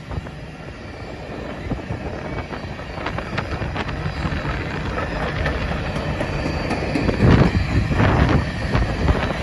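Freight train's covered hopper cars rolling past: a steady rumble of steel wheels on rail with scattered clicks, growing louder about seven seconds in.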